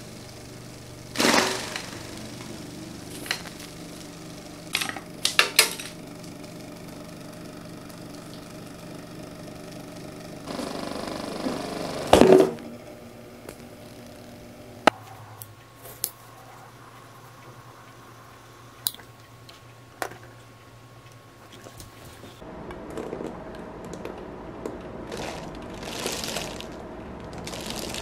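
Homemade cotton candy rig: a stripped electric fan motor hums steadily while a metal can lid spins on its shaft, and sugar syrup poured on from a metal cup is flung off against cardboard walls. Metallic clatters and splashes come about a second in, around five seconds in and again around eleven to twelve seconds in, with a few small clicks later.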